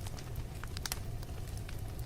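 Wood fire burning in a fireplace: a steady low rumble of flame with scattered sharp crackles and pops, a quick cluster of them about a second in.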